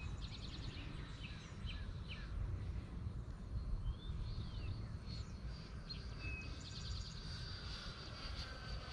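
Birds chirping and trilling in short calls over a low, steady rumble. In the last few seconds a faint high steady whine grows, the electric ducted fan of a distant model jet.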